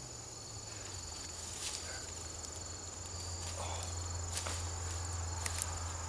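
Bare hands scraping and brushing soil and mulch away from a sweet potato in the ground, soft rustles with a few faint clicks. Under it a steady high insect song and a low steady hum.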